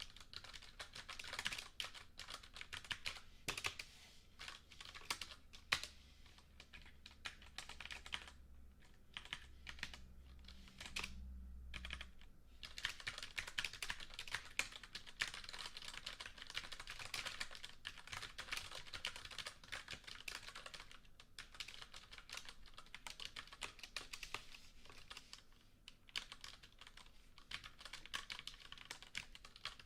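Typing on a computer keyboard: continuous runs of quick key clicks, slowing to a near-pause about nine to twelve seconds in before picking up again.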